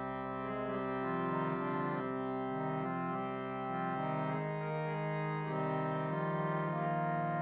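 Harmonium playing a kirtan accompaniment: sustained reed chords held and changing every second or two.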